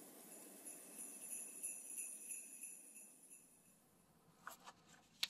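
Faint jingling of jingle bells, fading out about three seconds in. Near the end come a few soft rustles of a paper page being turned.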